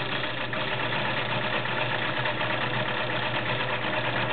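White model 734 sewing machine running steadily, its motor driving the needle through a stretch zigzag (rick-rack) stitch.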